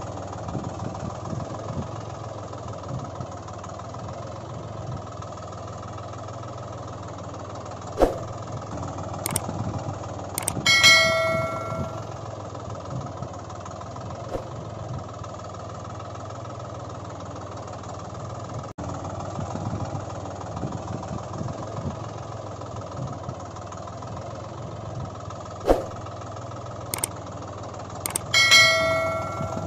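Steady engine idling sound effect with an irregular low chug. Twice a sharp click is followed a few seconds later by a brief bell-like ringing tone, about 11 s and 28 s in.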